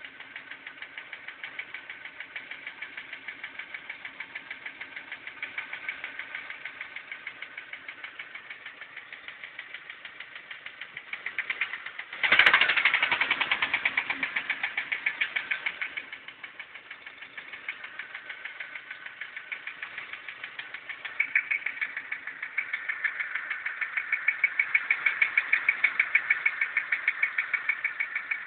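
ZMZ-406 four-cylinder petrol engine running with a rapid, regular knock, a new knock that appeared after a morning start, cause unknown to the owner. About twelve seconds in there is a sudden loud thump, and the knocking is louder for a few seconds after it and again near the end.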